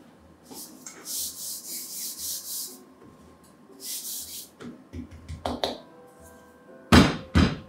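A hand rubbing flour onto a rolling pin in quick hissing strokes, about four a second, twice. Near the end come two loud knocks, the loudest sounds here.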